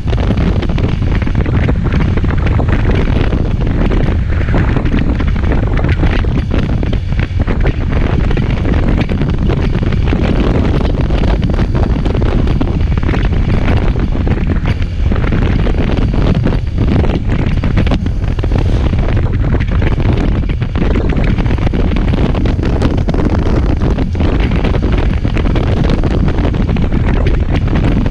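Loud, steady wind buffeting the microphone of a moving motorcycle, a constant low rumble.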